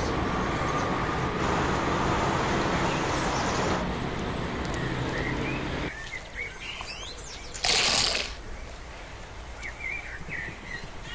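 Outdoor ambience: a steady wash of background noise for the first half, then small birds chirping, broken about two seconds later by a short loud burst of noise.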